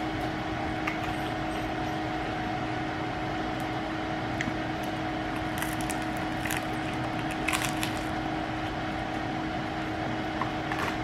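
Steady machine hum with two level tones, with a few short, faint crunches scattered through it as toasted French bread is bitten and chewed; the clearest come about six and a half and seven and a half seconds in.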